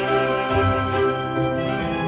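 Background music: slow string music with violin, held notes changing every half second or so.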